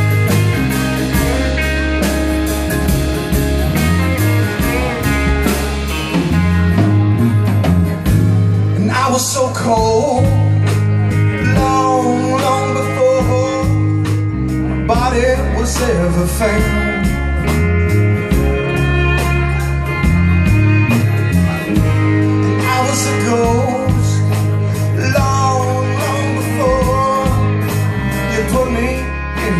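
Live band playing an instrumental passage of a blues-tinged rock song: electric and acoustic guitars over a steady bass line. A lead line of bending, wavering notes comes in and out over the band.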